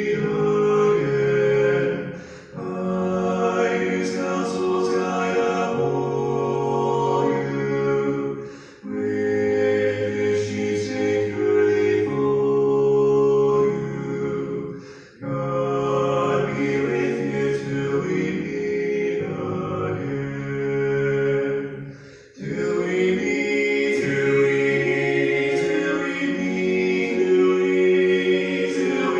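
Voices singing a slow hymn in long held phrases of about six to seven seconds, with a short breath-like break between each phrase.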